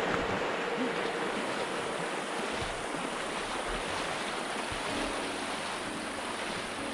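Shallow, rocky mountain creek rushing steadily as a runner wades through it, water splashing around his legs.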